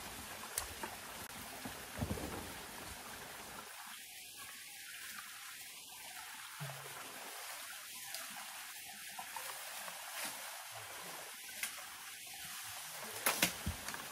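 Water trickling steadily, with a few light clicks and knocks scattered through.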